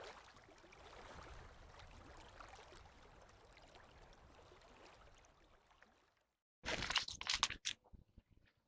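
Faint river water running, then about six seconds in it cuts off and a brief burst of rustling with a few sharp clicks follows.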